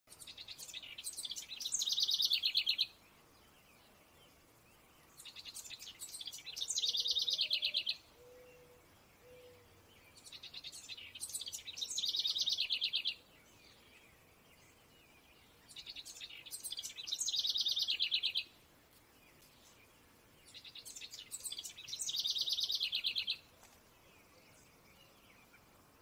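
A songbird singing the same song five times, about every five seconds: a few separate sharp high notes running into a fast, high trill that stops abruptly.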